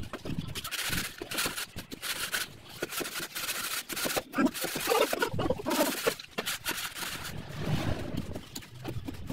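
Scraping and knocking of a wooden straightedge worked along wet sand-cement floor screed, with a few short calls about halfway through.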